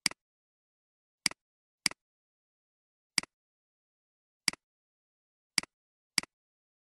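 Computer mouse clicks: seven sharp clicks at uneven intervals, each with a quick second tick just after it, and dead silence between them.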